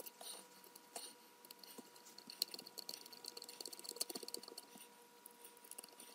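Faint clicks and taps of hard plastic parts being handled and pressed together as a plastic hand guard is fitted onto a cordless mini chainsaw's body, with a quick run of small clicks about halfway through.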